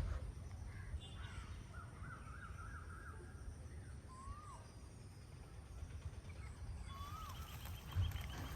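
A bird calling repeatedly: short clear notes that rise and then fall, with one quavering run of notes about a second and a half in, over a low steady background rumble.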